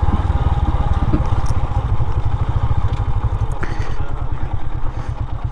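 Motorcycle engine running steadily at low speed with an even, low pulsing beat.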